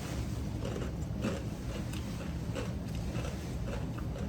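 Close-up crunching and chewing of a bite of raw jalapeño stuffed with cream cheese and Takis rolled tortilla chips, a few sharp crunches spread across the chew.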